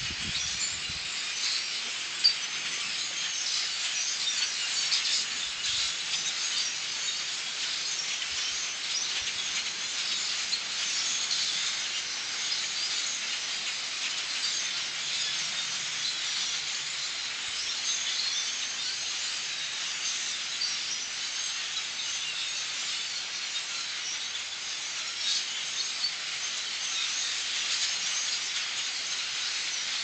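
Large migrating flock of birds calling all at once overhead, a dense, continuous chattering din of many high, squeaky calls blending into a hiss, recorded through a cell phone microphone. A single sharp click about two seconds in.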